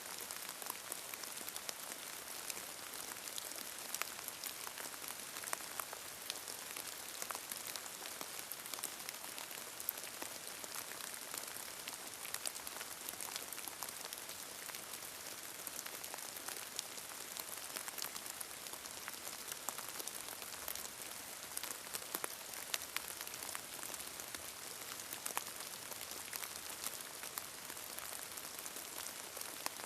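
Steady rain falling, a continuous hiss with many individual drops ticking sharply and irregularly on a surface. No thunder.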